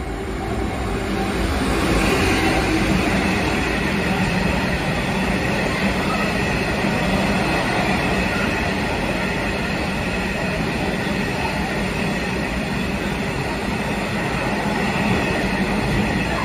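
Class 66 diesel-electric freight locomotive, with its two-stroke V12 engine, passing at speed, the sound rising over the first two seconds; then a long train of freight wagons running steadily past, their wheels on the rails.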